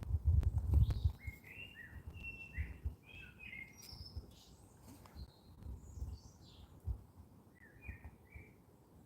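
Low rumbling thumps in the first second, then small birds chirping in short, scattered calls over a quiet background.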